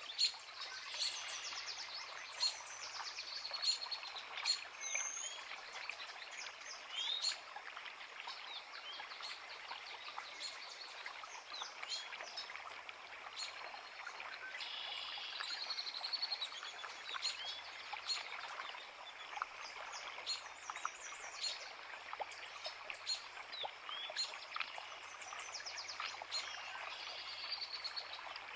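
Small creek running over rocks, a steady rushing hiss, with many songbirds singing and chirping over it throughout.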